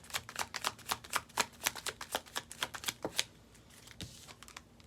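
A deck of tarot cards being riffle-shuffled by hand, a rapid run of card flicks that stops a little after three seconds in, followed by a couple of soft taps.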